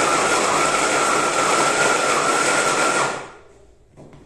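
Immersion blender with a chopper bowl running flat out, chopping a bread roll with a hard crust into breadcrumbs: a loud, steady motor whine, a racket. It is switched off about three seconds in and winds down.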